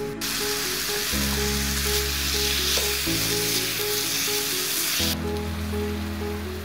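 Zucchini slices and garlic sizzling in oil in a frying pan as they are stir-fried, a loud, even hiss that starts abruptly and cuts off suddenly about five seconds in.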